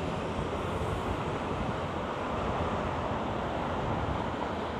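Steady rush of passing city street traffic.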